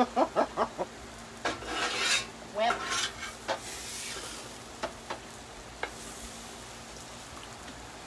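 Metal utensils clinking and scraping on a plate and a griddle tray, in scattered sharp clicks. In the first second there are a few short puffing vocal sounds, as from someone eating very hot food.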